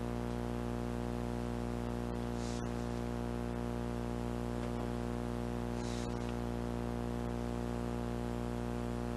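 Steady electrical hum with many overtones that does not change, with two brief soft hisses, about two and a half and six seconds in.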